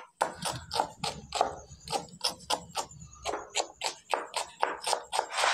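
A kitchen knife chopping fresh mint leaves on a plastic cutting board: quick, even chops at about four a second.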